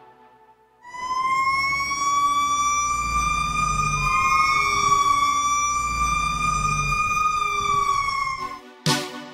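Fire engine siren in one long, slow wail that starts about a second in, holds its pitch and slides down near the end, over a low rumble. A beat of music comes in just before the end.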